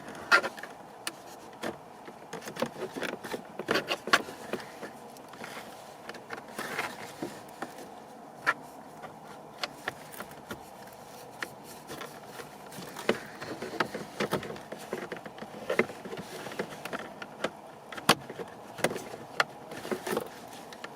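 Irregular clicks, taps and light scrapes of hard plastic as a small trim cover near the ignition key on a 2016 Chevrolet Trax steering column is pried and worked loose, over a steady faint hum.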